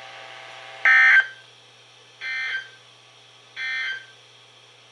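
Three short bursts of SAME digital data tones from a NOAA Weather Radio broadcast, spaced about a second and a half apart, the first one the loudest. This is the EAS end-of-message signal that closes the weekly test transmission.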